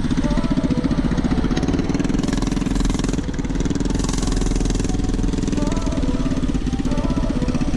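Predator 212cc single-cylinder four-stroke engine on a mini bike running as it is ridden, its speed changing a little, with a brief easing off about three seconds in.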